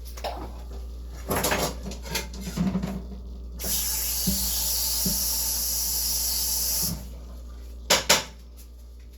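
A steady hiss lasting about three seconds that starts and stops abruptly, like a spray, between light kitchen handling sounds. Two sharp knocks come near the end.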